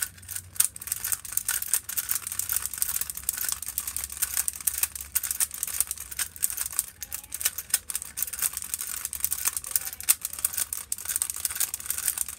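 Rubik's cube being turned fast in a timed solve: a rapid, unbroken clatter of plastic clicks and clacks as the layers snap round.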